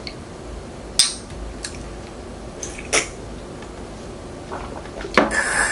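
Tableware being handled on a table: a few sharp light clinks of cutlery or dishes, then a short busier clatter near the end.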